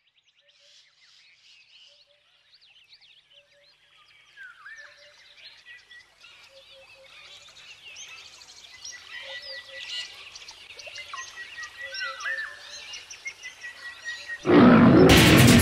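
Jungle ambience of many bird calls, whistles and chirps, with a low two-note call repeating every second or so, fading in and growing louder. Loud music cuts in about a second before the end.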